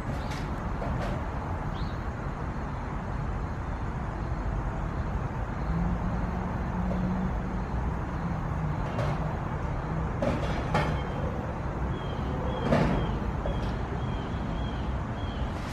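Outdoor ambience: a steady low rumble typical of distant traffic, with a low engine hum about six seconds in. A few sharp knocks come between about nine and thirteen seconds, and a run of short high chirps near the end.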